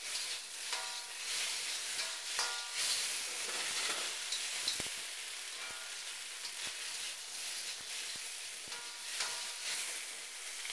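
Strips of marinated beef sizzling in a smoking-hot wok, with a steady frying hiss. A metal pancake turner scrapes and clinks against the wok every few seconds as the beef is stirred.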